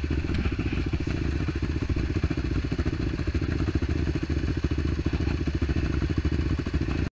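ATV engine running at a steady idle close to the microphone, a rapid, even chug that holds the same pace throughout.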